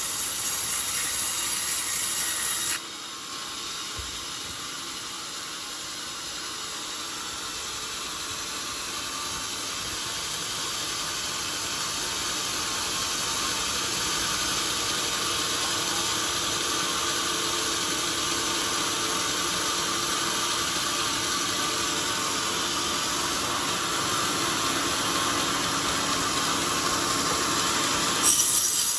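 Large band sawmill blade ripping lengthwise through a hard old coconut-palm log: a steady rasping noise, mostly high-pitched. It drops abruptly about three seconds in, swells slowly back up and holds steady, then changes abruptly again near the end.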